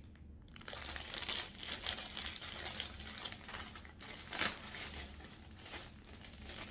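A cotton nightie and its packaging being handled, giving irregular crinkling and rustling. It starts about a second in, with a louder crinkle a little past four seconds.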